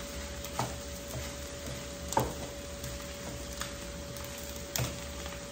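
A wooden spatula stirring fried rice in a nonstick frying pan over a gas flame, knocking against the pan three or four times over a faint steady hiss and a steady hum.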